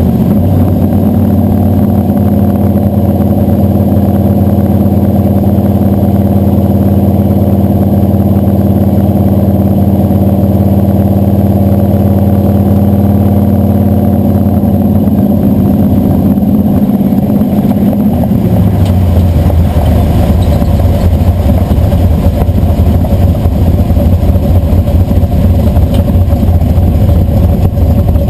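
Blueprint 540 big-block Chevy V8 running under way in a 1967 Chevrolet C10, heard from under the truck beside the frame and exhaust. It holds a steady note, then about 18 seconds in the revs drop to a lower, rougher note as the truck slows.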